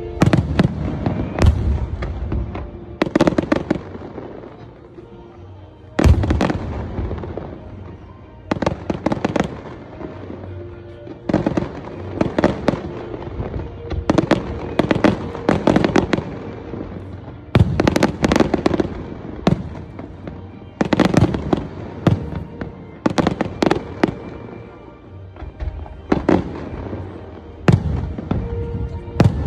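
Aerial fireworks bursting in repeated volleys, sharp bangs every second or two, each trailing off before the next, with music playing underneath.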